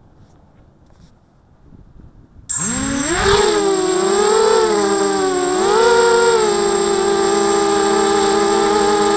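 ZMR 250 mini quadcopter's four brushless motors and propellers spinning up suddenly about two and a half seconds in, then a loud multi-toned whine whose pitch rises and falls with the throttle as it lifts off, with a thin steady high whine above it. Heard close up from the camera mounted on the quad.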